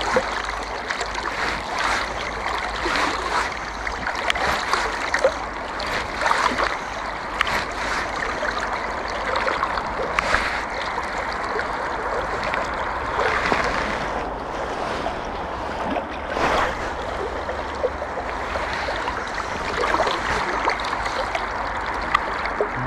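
River water rushing and lapping close by, a steady wash broken by many small irregular splashes and gurgles.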